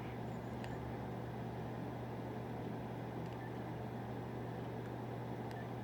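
Steady low hum with faint background noise, broken only by a few faint ticks.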